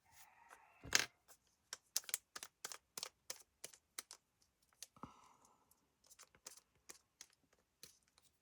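Paper being handled and pressed down on a craft table: a run of light clicks and taps, about two or three a second, with a brief paper rustle near the start and again about halfway.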